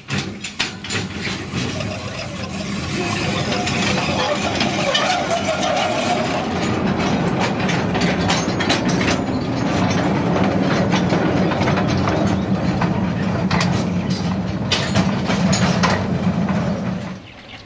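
A string of empty steel tipper wagons rolling along a light railway track behind a horse, rattling and clanking steadily, with many sharp knocks from the wheels and couplings. The noise cuts off near the end.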